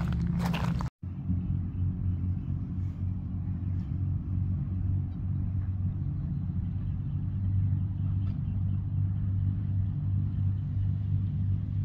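An engine running steadily as a low rumble at an even pitch.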